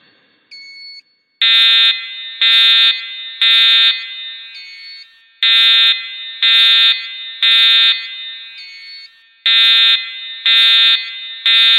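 Fire alarm sounding the temporal-three evacuation signal: three buzzy half-second horn blasts about a second apart, then a pause, with the pattern repeating three times. Each blast echoes briefly, and the signal means evacuate the building.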